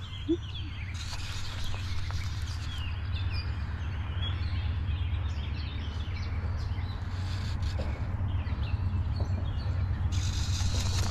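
Small birds chirping and singing in short, scattered calls over a steady low rumble.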